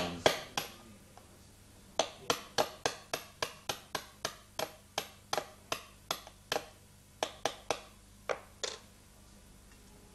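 Light taps of a small hammer on a flat cannon pinion punch, driving an alarm clock's cannon pinion down onto the centre wheel: a quick pair, then a steady run of about three taps a second, then a few more after short pauses.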